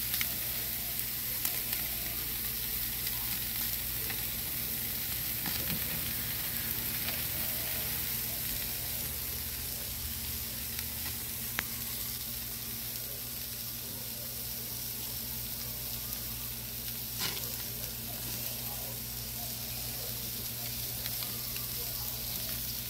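Steaks sizzling on a gas grill: a steady crackling hiss, with a steady low hum underneath and a couple of sharp clicks.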